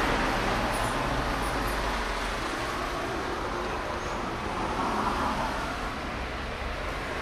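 A steady rushing noise that slowly eases a little in loudness.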